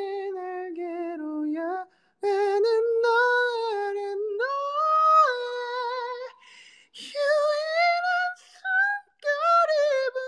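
A man singing unaccompanied in a high tenor, holding wavering notes in short phrases with brief breaks between them.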